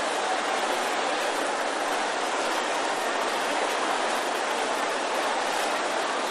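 A large congregation praying aloud all at once, many voices blending into a steady, even wash of babble with no single voice standing out.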